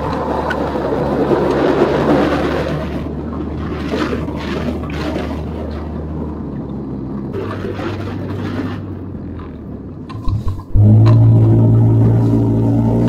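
Quad bike engine running, with rough noise and scattered knocks over it. About eleven seconds in, a much louder steady hum sets in suddenly.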